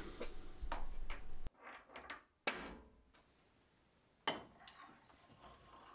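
Light metallic clicks and scraping as a collet holder is seated in a lathe spindle and a steel drawbar is slid through the spindle bore. A sharp metal click with a brief ring comes about two and a half seconds in, and another nearly two seconds later.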